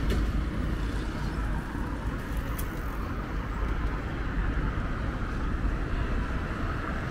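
Steady street ambience of road traffic, a constant low rumble with no single event standing out.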